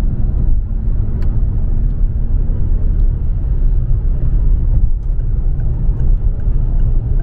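Road noise inside a moving car: a steady low rumble of tyres and engine, with a faint hum that fades out a couple of seconds in.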